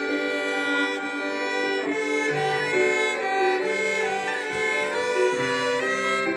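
A small group of violins playing a melody together, bowing sustained notes that change about every half second.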